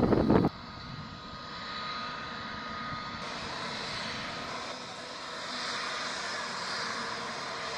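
Twin-engine jet airliner's engines running steadily on the runway: a whine over a steady rush, growing a little louder in the second half. A burst of wind on the microphone cuts off suddenly about half a second in.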